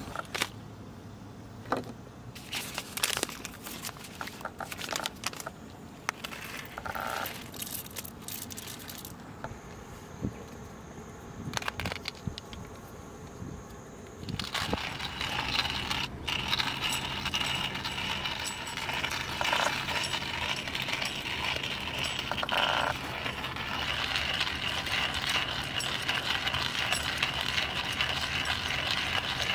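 Scattered clicks and rustles as the coffee bag and beans are handled. Then, about halfway in, a hand-cranked coffee grinder starts turning steadily, crushing the beans with a continuous gritty rattle.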